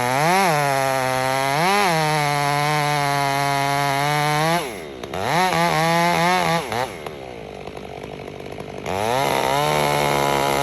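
Stihl MS 500i fuel-injected two-stroke chainsaw held at full throttle, cutting timber. It drops to idle just under five seconds in, revs up again for about a second and a half, idles, then goes back to full throttle about nine seconds in.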